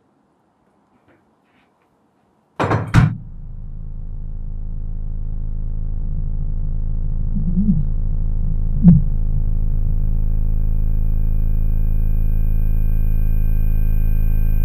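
A sudden loud hit, then a low, steady drone of layered tones that swells over several seconds and holds, with a sharp click partway through: a dramatic film sound-design sting.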